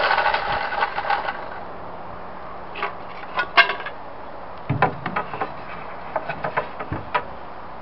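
A small power saw cutting into the timber of the cabinet, stopping about a second and a half in. Then scattered wooden knocks and clacks as pieces of timber are handled and moved, the loudest near the middle.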